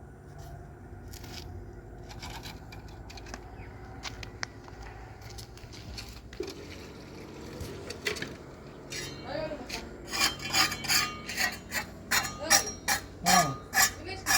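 Quiet clinks and room sounds, then about ten seconds in a fast run of rhythmic scraping or rubbing strokes, about three a second.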